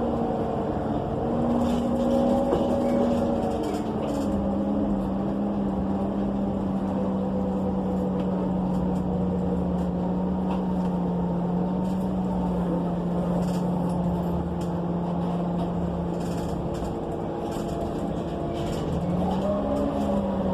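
ENC EZ Rider II bus with a Cummins Westport ISL G natural-gas engine and Allison automatic transmission, heard from inside while under way: a steady drone with a whine that holds one pitch, dips slightly about four seconds in, and rises then falls near the end. Light cabin rattles and clicks.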